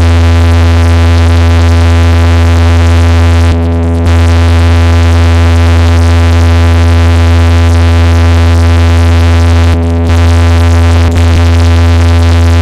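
Loud synthesizer music from a DJ sound system: one held chord over a heavy, unbroken bass tone, cutting out briefly twice, about four and ten seconds in.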